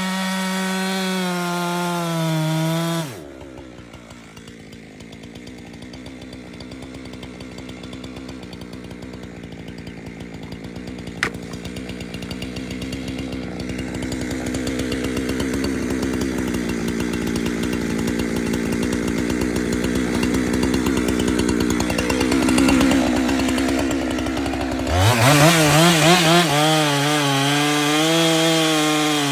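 Husqvarna 372XP two-stroke chainsaw cutting through a large ash log. It runs loud at high revs for the first few seconds, then settles into a quieter, steadier note that slowly grows louder through most of the cut. A single sharp click comes about 11 seconds in, and near the end the saw is loud again, its pitch wavering up and down.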